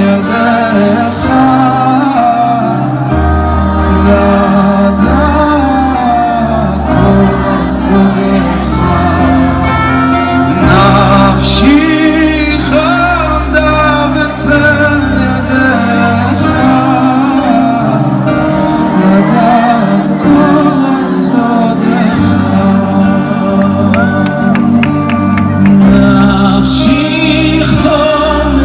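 Live concert music: men singing a Hebrew song in Hebrew over a band with drums and bass.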